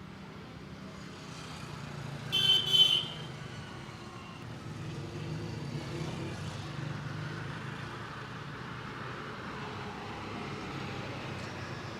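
Roadside traffic with a steady engine rumble, a vehicle horn sounding a short double honk about two and a half seconds in, and a passing vehicle swelling and fading later on.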